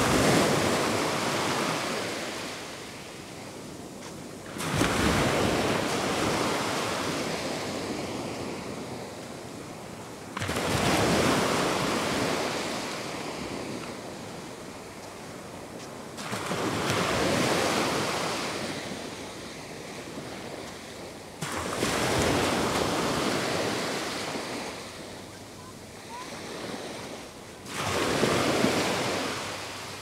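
Small Gulf of Mexico waves breaking and washing up a sand beach, about one every five to six seconds; each comes in quickly and then slowly fades.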